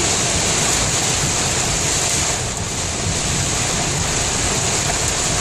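Torrential rain falling heavily on the car, heard from inside the cabin as a loud, steady, dense hiss with a low rumble beneath it.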